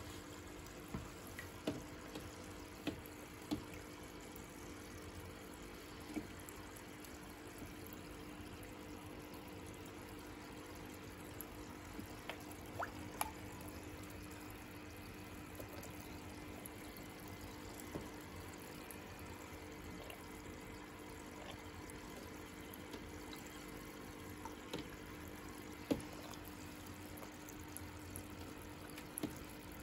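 Water from an aquarium filter trickling steadily into a turtle tank, with a low steady hum, and scattered small clicks and plinks.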